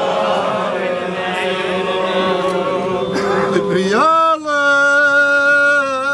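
Men chanting a Hebrew prayer together in overlapping voices; about four seconds in, one elderly man's voice rises and holds a long, steady note.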